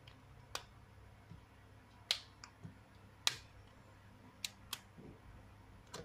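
Sharp, irregular clicks, about seven, the loudest two and three seconds in, as the plastic mid-frame of a Lenovo A6000 phone is pried off and its clips snap loose.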